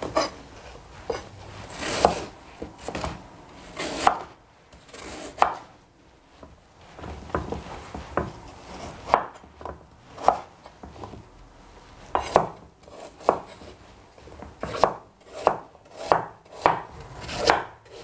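Cleaver chopping apple on a wooden cutting board: irregular knocks of the blade against the board, about one a second at first and coming quicker in the last few seconds.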